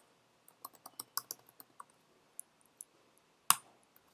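Typing on a computer keyboard, entering a login password: a quick run of keystrokes, then two more spaced out, and one much louder click about three and a half seconds in as the login is submitted.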